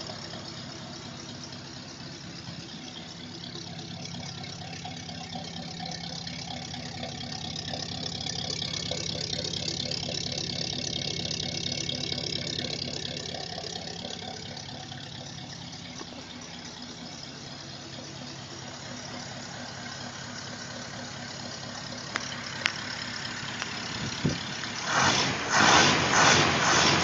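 1951 Ford pickup's flathead engine idling steadily at a low idle, growing somewhat louder in the middle and easing back. Near the end, a run of loud knocks and rustles comes over it.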